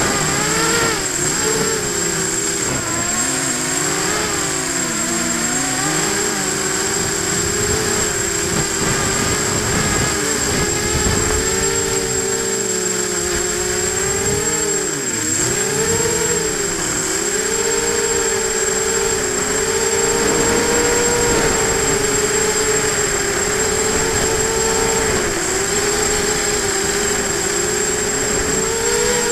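FPV hexacopter's six motors and propellers whining, the pitch rising and falling with the throttle and dipping sharply twice about halfway through, heard through the onboard camera with wind noise and a steady high-pitched tone alongside.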